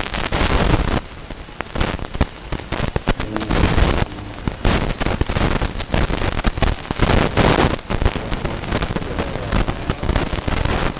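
Dense crackling and popping noise, many sharp clicks close together, dipping quieter for about a second early on.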